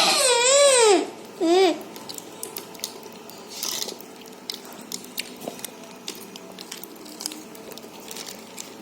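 A high-pitched, wavering vocal wail whose pitch swoops up and down for about a second, followed by a short second call. After that, only faint small clicks and taps from handling, with a brief hiss about three and a half seconds in.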